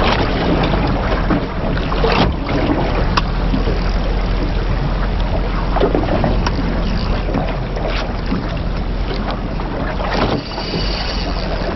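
Wind buffeting the microphone and sea water lapping against a small boat's hull, over a steady low hum, with a few scattered knocks.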